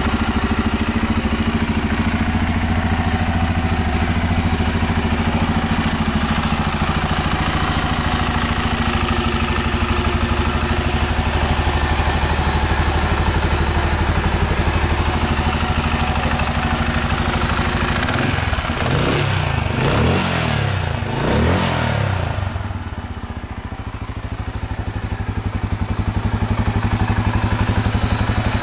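Benelli Imperiale 400's single-cylinder engine idling steadily. About two-thirds of the way through it is blipped with a few quick revs, then settles back to idle.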